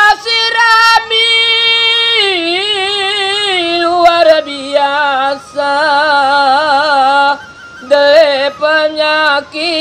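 A man singing solo and unaccompanied in the Gayo language. He holds long, ornamented notes that waver and slide downward, with short breaths between phrases.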